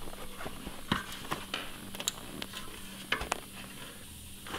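Rubber fat bike tire being worked onto its rim by hand: light rubbing and scattered small clicks as the bead is pushed over the rim edge.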